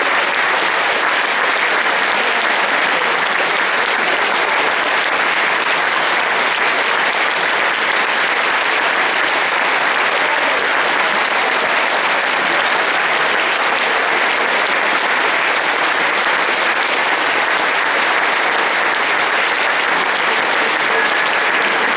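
Theatre audience applauding steadily, a dense, unbroken ovation of many hands clapping at once.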